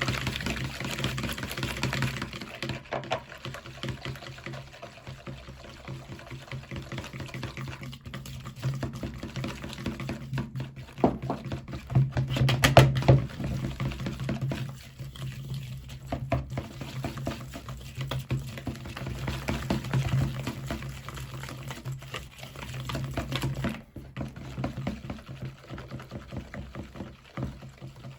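Eggs, oil and salt being mixed in a bowl for pancake batter: liquid sloshing with frequent irregular knocks of the utensil against the bowl, over a steady low hum.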